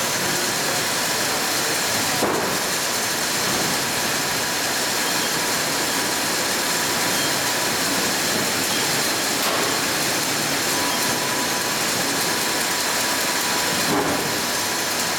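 Steady mechanical hum and hiss of an automated pail-palletizing line, a robot and conveyor running, with a faint knock about two seconds in and another near the end.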